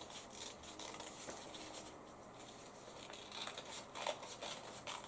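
Scissors cutting out a paper pattern: a run of faint, quick, irregular snips, with the paper rustling.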